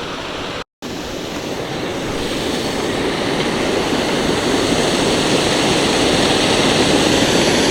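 Waterfall rushing, a steady wash of falling water that drops out abruptly for a split second just under a second in, then comes back and grows steadily louder.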